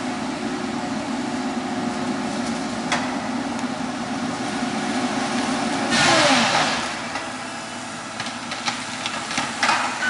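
Heavy logging machine's diesel engine running steadily. About six seconds in, a loud rushing burst sounds and the engine pitch drops as it loads down on a big tree.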